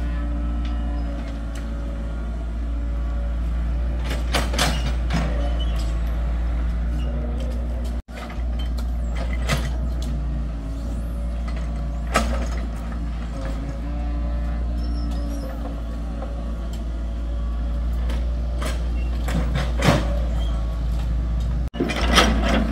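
Excavator's diesel engine running steadily with a deep hum, with a few sharp knocks and clanks from the machine working.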